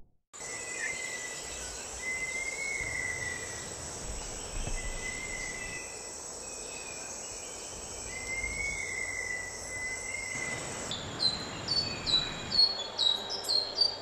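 Rainforest ambience: a steady high insect drone with a bird calling in long, thin notes a few times. Near the end a rapid run of short, falling high chirps comes in, about three a second.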